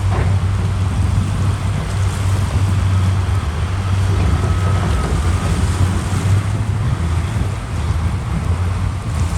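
Heavy diesel earthmoving machinery running with a steady, deep rumble.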